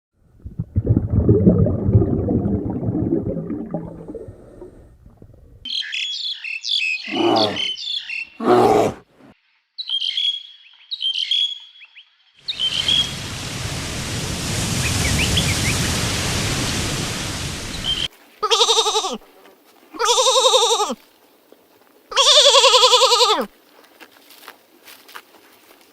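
A run of separate animal recordings cut together. A rough, noisy low sound lasts about five seconds, then come high chirping bird calls and a steady hiss of about five seconds. It ends with three wavering bleats, each about a second long.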